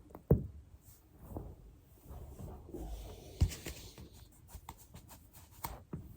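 Foam rolling: a body shifting and rustling on a foam roller, with two sharp low pops about three seconds apart and a run of small clicks near the end.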